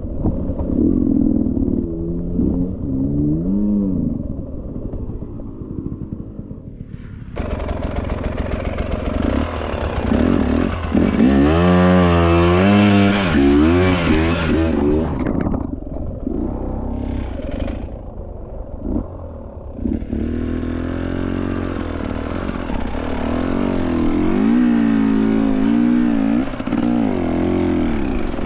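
Enduro dirt bike engine revving up and down repeatedly as the rider works the throttle, loudest about halfway through and again near the end. A steady hiss runs over the engine for long stretches.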